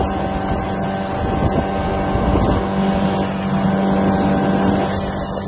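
Small boat's outboard motor running steadily at speed, holding a constant pitch, with water rushing along the inflatable hull and wind buffeting the microphone.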